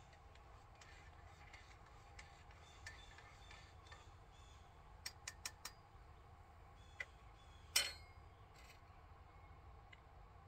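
Scattered small clinks and taps of dishes and utensils being handled over a quiet background: a quick run of four about halfway through, then a louder clink with a brief ring a little later.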